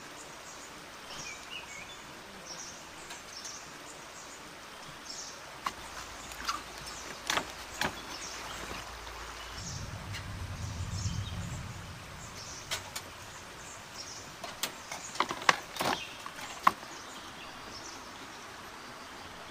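Footsteps knocking and creaking on a bamboo-and-log footbridge, in irregular sharp clacks that come in two spells, about a third of the way in and again after halfway. Behind them is forest ambience with high, repeated chirping, and a low rumble around the middle.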